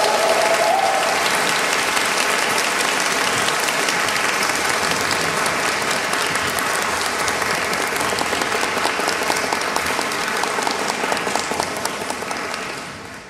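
Audience applauding in a concert hall, dying away near the end. In the first second the last held chord of the women's a cappella barbershop quartet fades out under the clapping.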